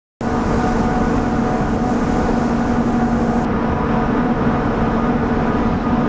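A ship's machinery running aboard a freight ferry at sea: a loud, steady hum with several fixed tones over a low rumble. It starts suddenly at the very beginning.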